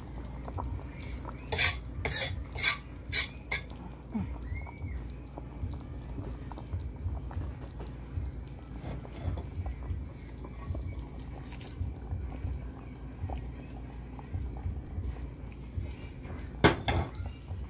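Cooking utensil clinking and scraping against pans as shrimps are scraped from a frying pan into a pot of curry. There are about six quick clicks a second or so in, scattered light ticks, and a louder clatter near the end, over a low steady rumble.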